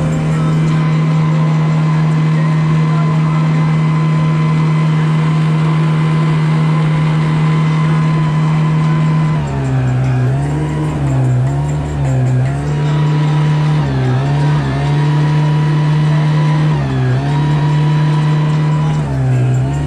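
Mariner outboard motor running at speed and pushing a small aluminium boat. Its steady drone holds for about half the time, then dips in pitch and recovers several times.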